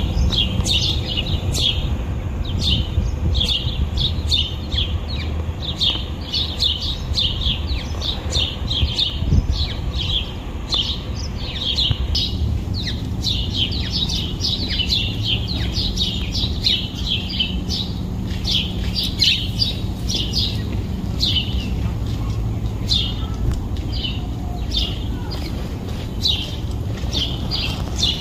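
A flock of house sparrows chirping continuously, many short chirps overlapping several times a second, over a steady low background rumble.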